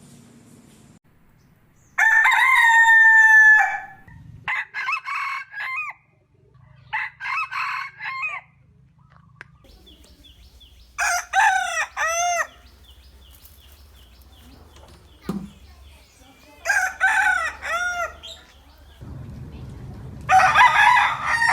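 Roosters crowing: about six separate crows of a second or two each, spaced through the stretch, the first and last the loudest. A faint steady low hum lies underneath in the second half.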